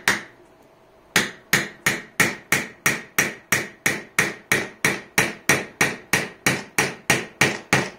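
A 3D-printed resin hammer driving a steel nail into a wooden board. One strike comes first, then a pause of about a second, then a steady run of about twenty sharp blows, roughly three a second.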